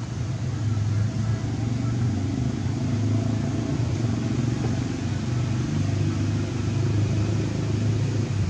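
A steady low engine hum, holding at an even level for several seconds.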